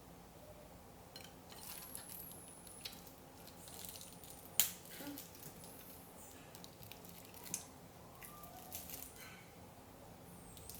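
Faint scattered clicks and small wet smacks of a baby monkey eating fruit, with one sharper click about halfway and a few faint high squeaks.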